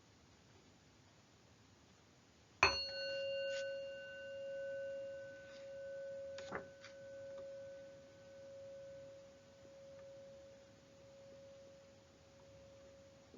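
A meditation bell, struck once about two and a half seconds in, rings one clear tone that slowly fades away, its loudness gently pulsing as it dies.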